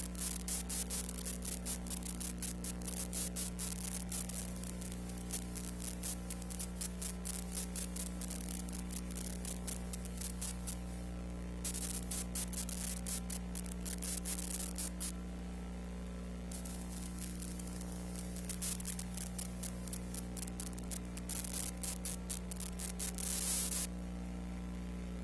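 Steady mains hum with dense crackle and hiss over it, the noise floor of a silent archival film transfer. No sound from the scene itself is heard. The crackle drops out briefly a few times.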